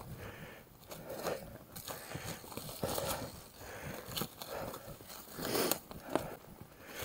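Mountain bike rolling over a freshly cut dirt trail: irregular crunching from the tyres, with a couple of sharp knocks from the bike near the end.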